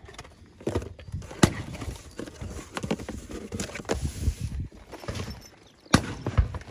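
Handling noise from a phone rubbing and knocking against clothing: irregular scuffs and soft knocks, with two sharp clicks, one about a second and a half in and a louder one near the end.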